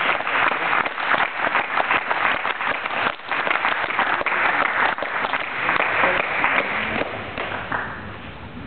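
Audience applauding with dense, steady clapping that thins out and fades near the end.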